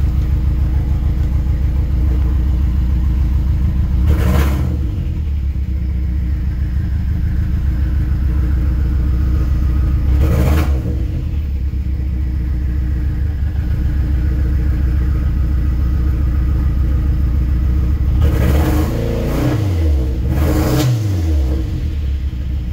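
Saturn Sky Redline's turbocharged 2.0-litre Ecotec four-cylinder idling steadily on six-month-old pump E85, heard from inside the cabin. It is blipped a few times: once about four seconds in, again about ten seconds in, and two or three times near the end. Each blip rises and falls back to idle, with the turbo heard spinning up.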